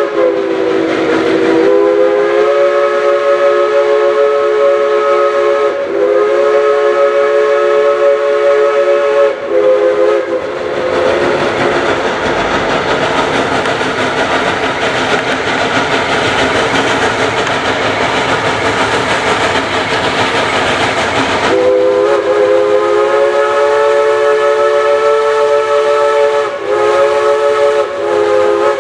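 Geared steam locomotive's chime whistle sounding a chord of several notes in a series of long blasts for about the first ten seconds, then the loud hissing exhaust of the engine working its train up the grade, and the whistle again in two long blasts near the end.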